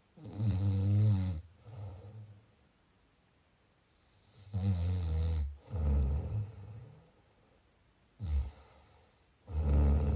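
A person snoring: three loud, low snores about four and a half seconds apart, each followed by a softer breath.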